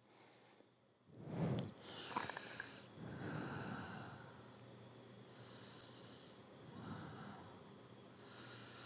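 Faint breaths and sniffs close to the microphone, in a few soft swells: the strongest about a second in, a longer one around three seconds in and a weaker one near seven seconds.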